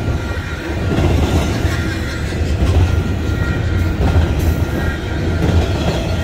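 Double-stack intermodal container cars of a fast freight train rolling past close by: a loud, steady rumble of steel wheels on rail, with faint high ringing tones over it.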